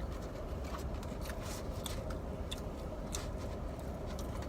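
Close-up eating: chewing with scattered small mouth clicks and crackles of pizza crust, over a steady low rumble.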